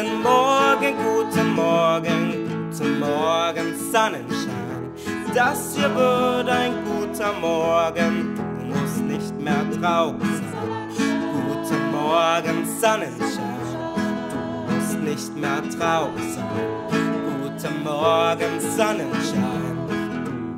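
A song: singing over strummed acoustic guitar.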